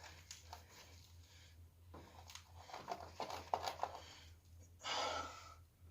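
Faint clicks and scrapes of hands working at a rubber fuel line and its clamp, with a low steady hum underneath. A short breathy exhale comes about five seconds in.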